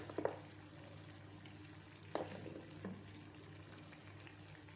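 Meat tagine faintly sizzling in its pot, with a few light knocks of carrot pieces and utensils against the pot over a steady low hum.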